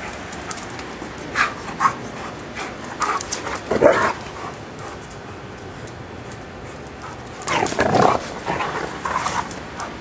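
Giant Schnauzers barking in play, in two clusters of short barks: one from a second or so in to about four seconds, and another near the end.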